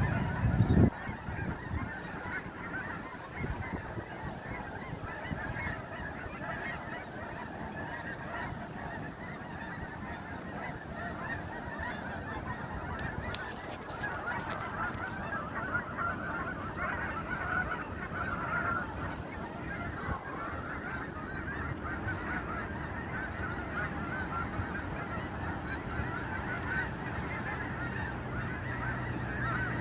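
A large flock of geese honking, many calls overlapping in a continuous clamour. A brief low rumble sounds in the first second.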